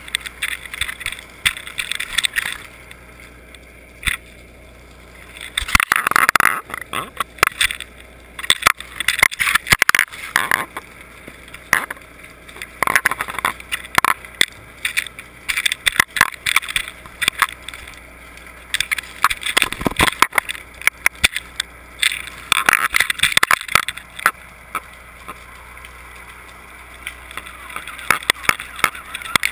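Underwater sound picked up by a GoPro in its waterproof housing as it is towed on fishing line: rushing water and rapid irregular clicking and knocking, coming in bursts with quieter stretches between.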